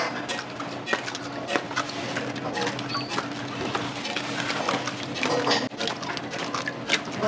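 Restaurant kitchen clatter: irregular clicks and knocks of utensils and dishes over a steady hum, with a brief voice about five seconds in.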